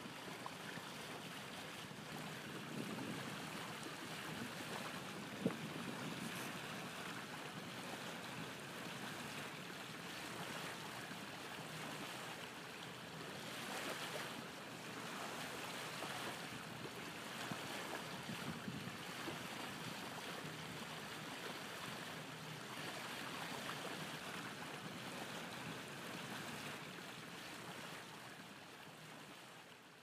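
Sea water washing: a steady rush of waves that swells and eases every few seconds, with one sharp click about five seconds in, fading out near the end.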